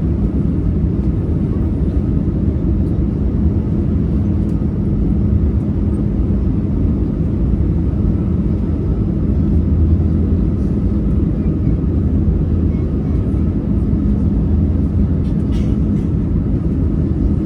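Steady low rumble of engine and airflow noise inside the cabin of an Airbus A320-200 in flight, with a constant hum over it.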